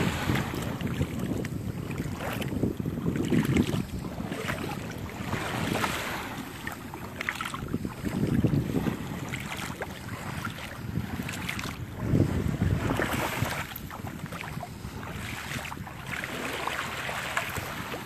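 Wind gusting on the microphone, a rumble that swells and fades every few seconds, over the hiss of small Gulf of Mexico waves washing up the sand.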